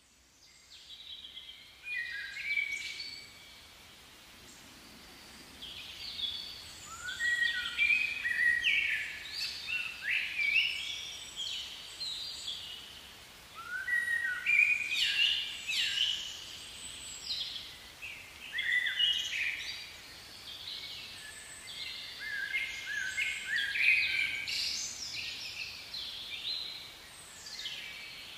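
Wild birds singing: clusters of short chirps and quick sliding whistles every second or two, fading in over the first couple of seconds.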